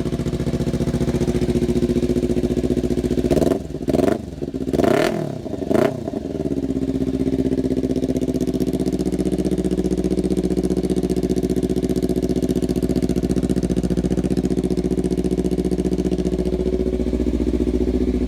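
2014 Kawasaki Ninja 300's parallel-twin engine idling through a Kajimotor slip-on exhaust. Three quick throttle blips come between about four and six seconds in, each rising and falling in pitch, before it settles back to a steady idle.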